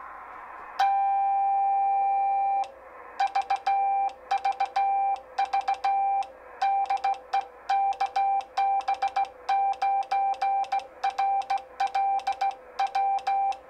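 Morse code CW tone from a Grundig receiver picking up a homebrew 630-metre (about 475 kHz) CW transmitter as it is keyed. About a second in there is one long steady note of about two seconds, then a fast run of dits and dahs, with faint receiver hiss between them. The keying is fast and clean, the sign of a working power amplifier.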